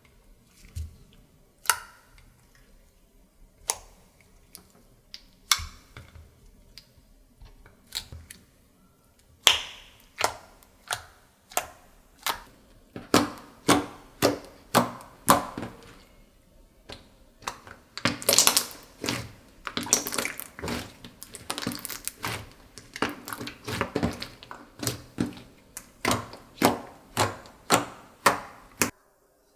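Slime being squeezed and worked by hand, giving sharp clicking pops of trapped air. The clicks are scattered at first, then come fast, about two a second, from about ten seconds in, with a denser crackly stretch around the middle.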